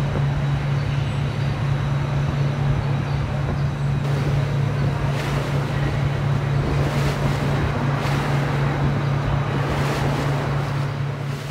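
A steady low hum under a dense rushing noise, starting to fade near the end.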